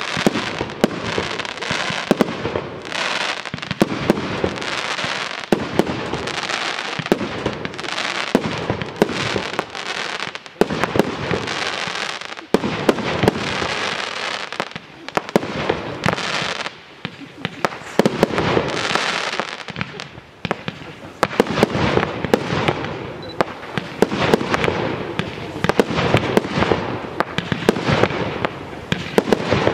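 Professional aerial fireworks display: shells bursting in quick, overlapping volleys with dense crackling between the bangs. The barrage thins briefly a little past the middle, then builds again.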